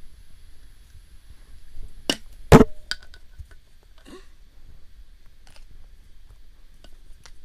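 Handling noise from plastic toy figures being moved: two sharp knocks about half a second apart a little over two seconds in, the second much louder, then a few fainter clicks.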